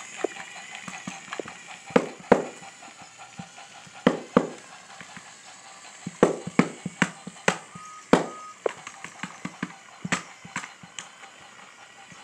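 Battery-powered TrackMaster toy train running along plastic track, its wheels and couplings giving irregular sharp clicks and clacks over a faint steady hum.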